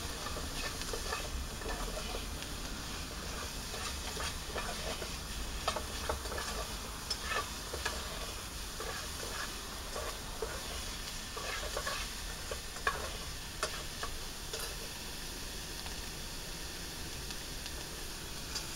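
Diced bacon sizzling as it fries and browns in a metal pot on a portable gas stove, with a metal spoon clicking and scraping irregularly against the pot as it is stirred.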